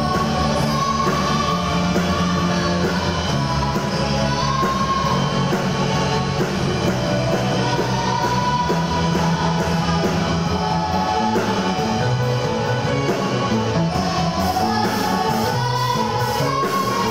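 Live rock band playing: drum kit with a steady cymbal beat, guitar and keyboard, under a high-pitched, shrill female lead vocal holding long notes.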